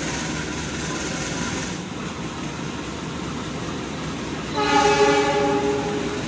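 Diesel-electric locomotive CC 203 (a GE U20C type) running as it pulls a passenger train out of the station, with wheel and rail noise. About two-thirds of the way through, a locomotive horn sounds one loud blast lasting about a second and a half.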